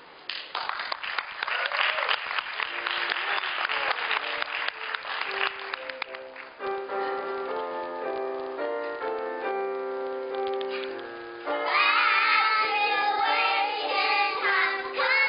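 Audience clapping, which gives way about six seconds in to instrumental music with a clear stepped melody; about twelve seconds in, children's voices start singing along.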